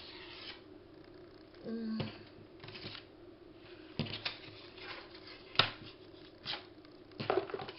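Thin copy paper being handled, refolded and rustled on a craft table, with scattered light clicks and taps; a sharp tap a little over halfway through is the loudest. A faint steady hum runs underneath.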